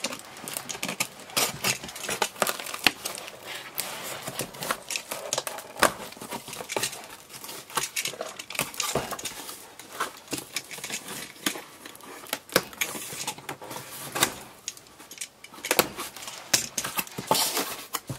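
Red box cutter slicing and scraping through clear packing tape on a cardboard box, with crackling tape and cardboard flaps being handled: a run of short sharp clicks and scratchy scrapes. Near the end the flaps are folded back and the packages inside are handled.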